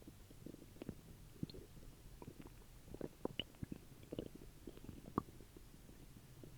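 Human stomach after a meal making faint, irregular gurgles, pops and short squeaks as it digests.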